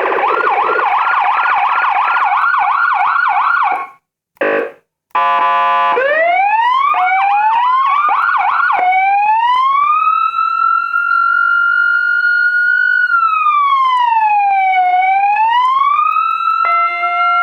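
Federal Signal ASH8B 400-watt electronic siren switching through its tones: a fast yelp that cuts off about four seconds in, a brief horn-like blast, then quick rising whoops and a slow wail that climbs, holds, dips and climbs again, with a steady lower tone joining near the end.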